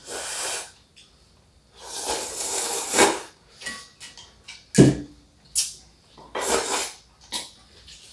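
Mul-naengmyeon (cold broth noodles) being slurped off chopsticks, several separate noisy slurps, the longest lasting about a second and ending sharply around three seconds in. A single knock comes near the middle.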